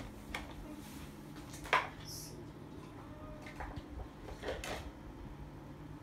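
Scattered clicks and clatter of CDs and their cases being handled while someone looks for another disc, the loudest click just under two seconds in, over a faint steady hum.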